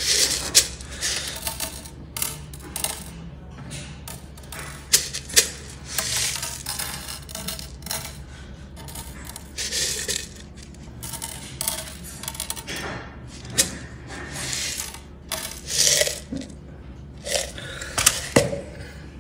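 Coarse glass frit clinking and rattling as it is shaken out of a glass jar and set down on a glass panel: scattered sharp clicks with louder clusters now and then.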